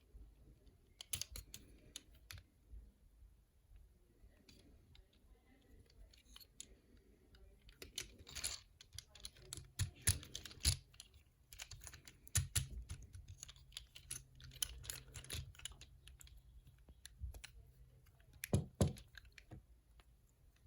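Hard plastic toy and packaging being handled: irregular clicks and taps, with a few louder knocks, the loudest near the end.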